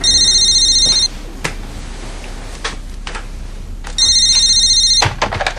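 Telephone ringing twice with an electronic trill, each ring about a second long with a three-second pause between. Near the end come a few clicks and a rustle as the handset is picked up.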